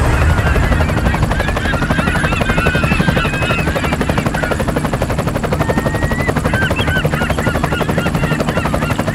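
A loud, steady noise that pulses rapidly, with short high chirps scattered over it.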